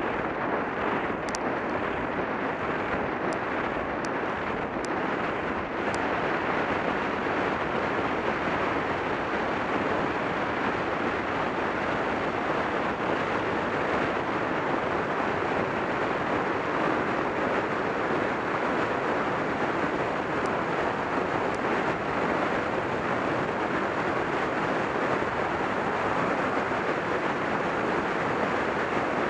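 Steady wind rush over the microphone of a camera moving along a road, a little louder from about six seconds in, with a few faint ticks in the first six seconds.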